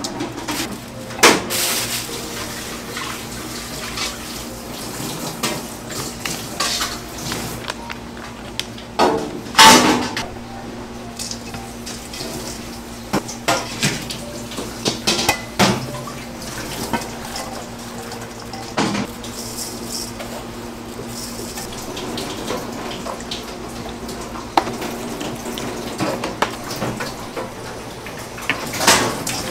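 Large stainless steel mixing bowl knocking and clattering as gloved hands toss raw beef strips with chopped green onions, with the loudest clang about ten seconds in. A steady low hum runs underneath.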